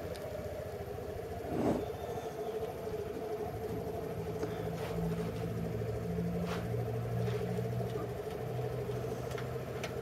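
Motorcycle engine running at low speed as the bike creeps along, its deeper note coming up about four seconds in and easing off near the end, over a steady hum. A brief louder noise sounds once, a second and a half in.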